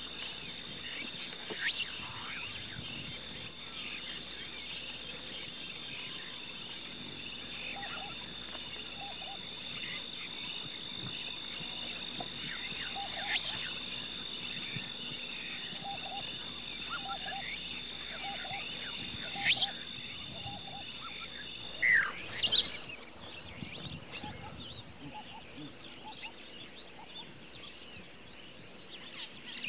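A wildlife chorus of high-pitched calls pulsing evenly, about three pulses every two seconds, with a few short bird chirps. About three-quarters of the way through it changes abruptly to a softer, steadier high-pitched chorus.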